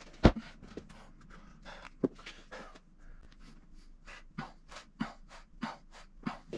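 A man breathing hard in quick, sharp puffs through a set of dumbbell shoulder presses. The breaths come about two a second in the second half. There is one sharp thud about a third of a second in.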